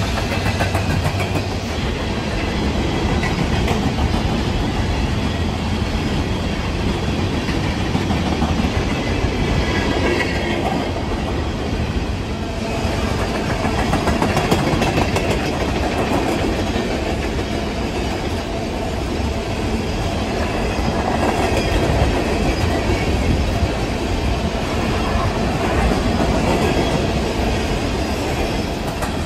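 Freight train of open-top coal cars rolling past: a steady rumble and clatter of steel wheels running over the rails.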